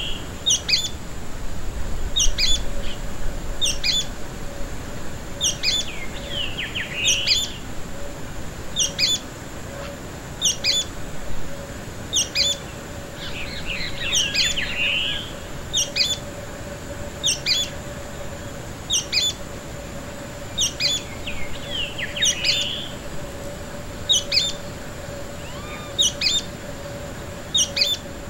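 Sooty-fronted spinetail singing its short, sharp call over and over at an even pace, about once every second and a half. A few brief bursts of twittering come in between.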